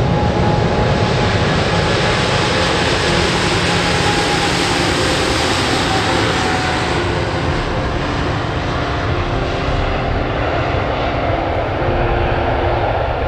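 Boeing 747-8 freighter's four GEnx jet engines running with a loud, steady rumble and hiss as the aircraft rolls along the runway. The high hiss thins after about ten seconds as it moves away.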